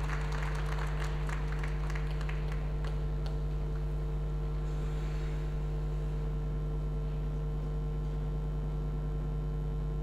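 Scattered applause from a small audience, thinning out and stopping about three seconds in, over a steady electrical hum.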